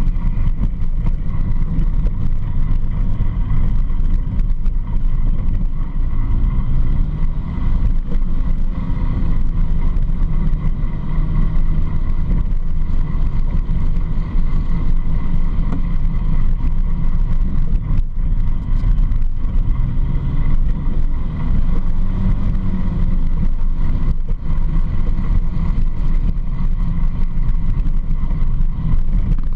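Quad ATV engine running under way on a dirt trail, with a heavy low rumble. Its pitch rises and falls a few times as the throttle changes.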